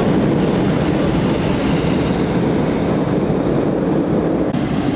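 Hot air balloon's propane burner firing in one long, loud blast.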